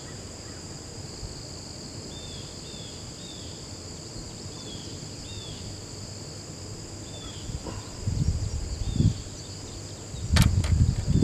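Steady high-pitched drone of summer insects with a string of short falling chirps over it. About eight seconds in and again near the end come loud low bumps and rustles, with one sharp click, as the angler moves close to the microphone.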